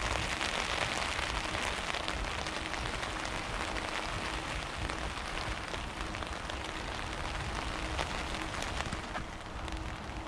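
Rain falling on a surface: a steady hiss made of many small, rapid ticks, over a low rumble.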